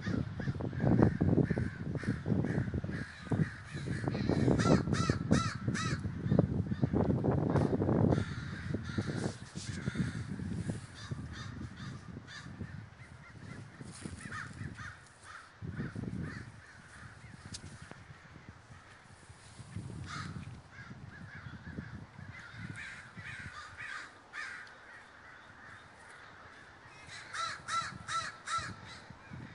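A large flock of American crows cawing, many calls overlapping in quick series, loudest in the first several seconds and again near the end. A low rumble on the microphone runs under the first several seconds.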